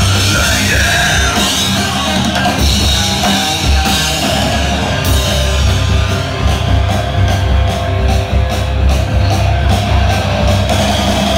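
Live rock band playing loudly, with drum kit, guitar and heavy bass; the cymbals strike in a steady beat through the second half.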